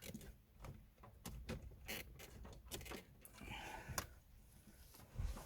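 Scattered light clicks and scrapes of a car ignition switch being handled and pushed up into place under the steering column, with a duller knock near the end.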